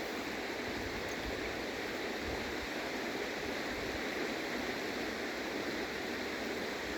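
Steady rushing of a flowing river, an even wash of water noise.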